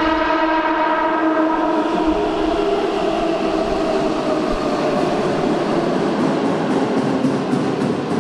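Keihan electric commuter train sounding its horn in one steady blast of about three seconds as it enters an underground station, then the rumble of the cars running in along the platform, echoing off the station walls.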